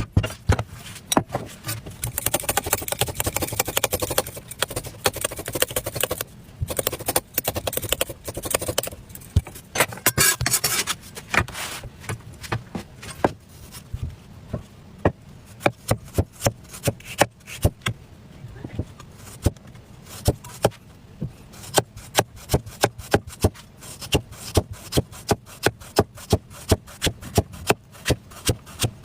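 A knife scraping and peeling a potato, then rapid, evenly spaced knife chops through potato onto a cutting board, about three a second, from around the middle on.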